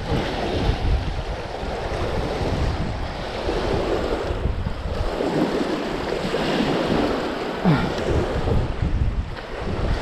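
Strong gusty wind buffeting the microphone, over waves washing against the shore.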